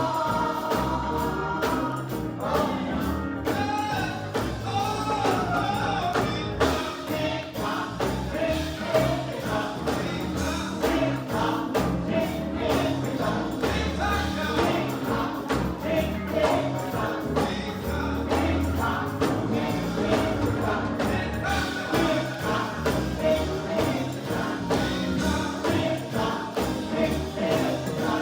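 Gospel group singing with a steady beat, the sound of a live performance, with a tambourine among the percussion.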